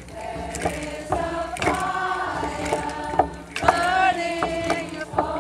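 A group of women singing together in a chant, holding long, slowly gliding notes, with sharp beats of a frame drum cutting through.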